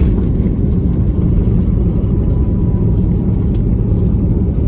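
Cabin noise of an Airbus A321 just after landing: a steady low rumble of the engines and the rolling aircraft, heard from inside the cabin.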